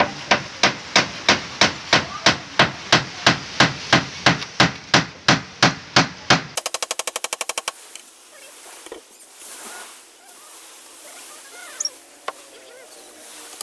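Hammer blows on a wooden boat hull under construction, about three a second in a steady rhythm for some six seconds. Then an abrupt change to a brief run of rapid tapping, followed by quieter scattered knocks.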